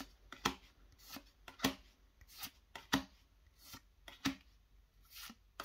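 Pokémon trading cards being slid one at a time from the front of a hand-held stack to the back, each card giving a short papery swish, about two a second.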